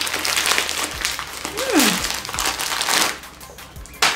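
Patterned wrapping paper crinkling and rustling as a gift is unwrapped by hand, with a brief falling squeak near the middle. The rustling dies down about three seconds in, and a sharp tap comes near the end.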